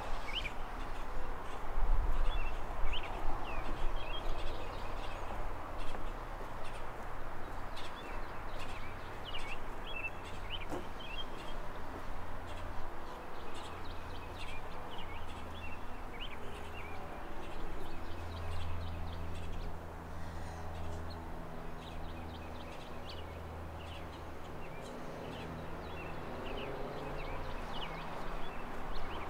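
Small birds chirping repeatedly, short high calls scattered throughout, over a steady outdoor background and a low hum.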